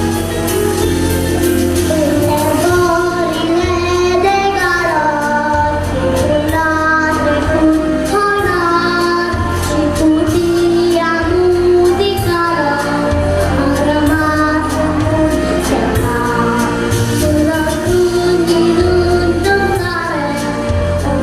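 A young girl singing a song in a high voice over a pop-style backing track with a steady bass line.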